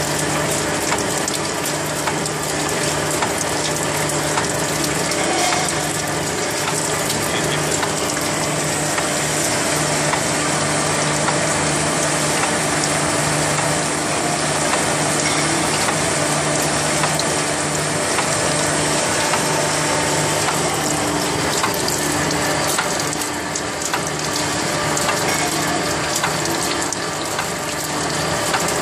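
Bevel gear generating machine cutting the teeth of a steel straight bevel gear: a steady, even mechanical running with a constant low hum and a dense, rapid clatter of the cutting tools. Cutting oil pouring over the work adds a liquid splashing.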